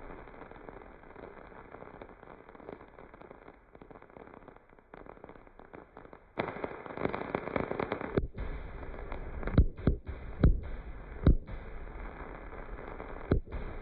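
Aerial fireworks exploding. A low rumble gives way about halfway in to a burst of dense crackling, followed by several sharp, separate bangs.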